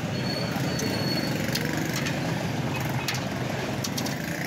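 A steady low rumble, with a few light metal clinks of a ladle against steel serving bowls.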